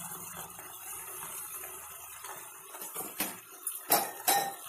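Chicken frying in a metal kadai with a steady low sizzle, then a few sharp clinks and knocks of a metal spatula against the pan in the second half.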